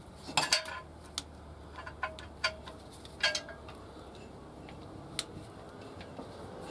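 Sharp metallic clicks and clacks of a new handbrake cable's end fitting being worked by hand into its bracket: a quick cluster about half a second in, then single clicks every second or so.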